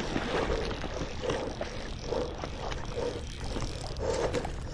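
Fly reel being wound in during the fight with a hooked trout, a rhythmic pulse about twice a second with faint clicks, over a steady low rumble of wind and river on the microphone.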